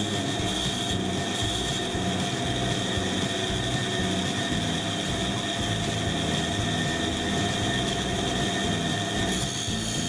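Fine-cut band saw running steadily: a constant high whine over a lower hum and a fluttering low rumble, as a small piece of wood is guided against the blade.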